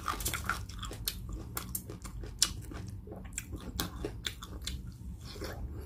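A person chewing crunchy food: a run of small wet crunches and clicks, with one sharper crunch about two and a half seconds in.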